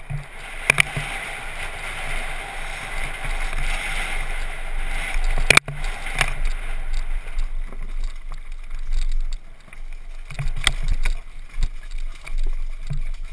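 Mountain bike descending at speed: a steady rush of tyres on gravel and wind over the bike-mounted camera, easing after about six seconds, with sharp knocks and rattles as the bike hits bumps and rocks, louder ones near the start, around the middle and near the end.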